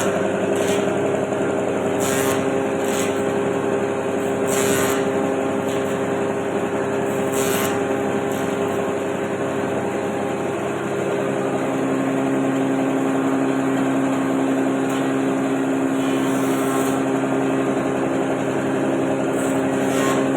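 An electric power tool's motor running steadily, its hum dropping to a lower pitch about halfway through, with a few short hissy bursts in the first half.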